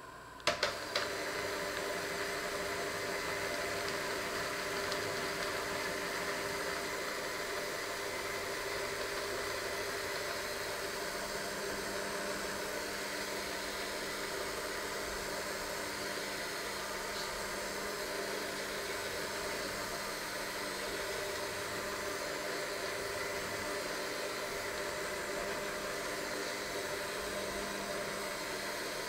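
Electric hand mixer with dough hooks switched on about half a second in, with a few clicks, then its motor runs steadily while the hooks churn a flour mixture in a stainless steel bowl.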